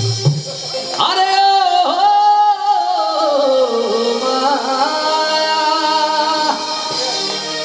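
A man singing a long drawn-out melodic phrase of a Sylheti folk song through a microphone. His voice slides down about halfway through and then settles into held notes, over keyboard accompaniment.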